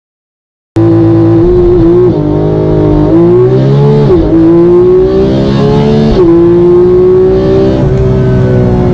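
Porsche 911 GT3 (991.2) naturally aspirated 4.0-litre flat-six running at high revs. It begins under a second in; its pitch climbs slowly and dips briefly about two, four and six seconds in.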